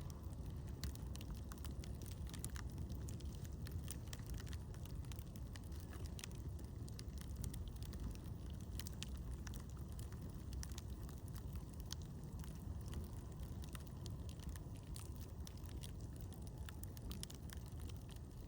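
Campfire crackling: irregular small pops and snaps scattered throughout, over a steady low rumbling noise.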